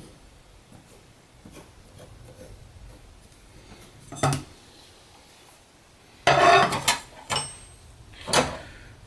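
Metal clattering on a workbench as a sheet of aluminum and metal layout tools are handled: one sharp knock about four seconds in, then a louder, ringing clatter a little after six seconds and two more clanks near the end.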